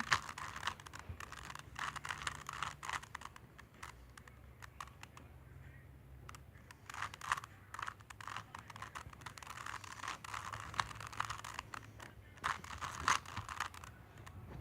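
Plastic Rubik's Cube being twisted by hand: irregular runs of small clicks and scrapes as the layers are turned, busiest near the middle and toward the end.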